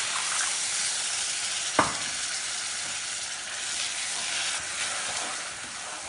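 Hot oil and fried masala sizzling steadily in a pan as just-added water boils on contact, with a single sharp knock about two seconds in.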